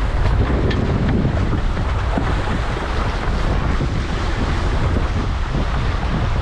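Strong wind buffeting the microphone in a steady low rumble, over the rush and splash of water along a Tornado catamaran's hulls as it sails through heavy chop.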